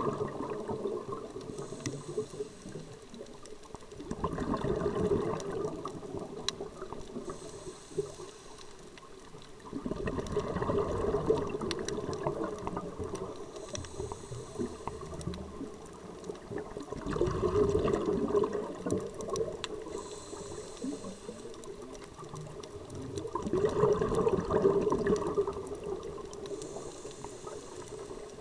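Scuba diver breathing through a regulator underwater: a short hiss on each inhale, then a longer, louder rush of bubbles on each exhale, repeating about every six seconds.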